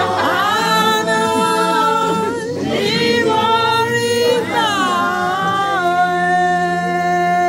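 Voices singing unaccompanied in three long phrases, with long held notes that glide between pitches.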